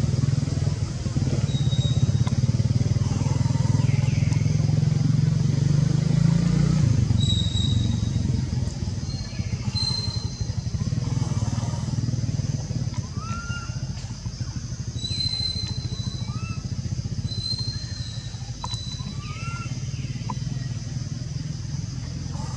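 Steady low rumble of a running motor-vehicle engine, easing somewhat after the first several seconds. Over it, a steady high hiss and scattered short high chirps and whistles.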